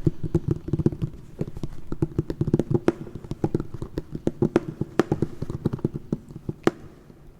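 ASMR tapping on an object: quick, uneven taps, several a second, that stop shortly before the end.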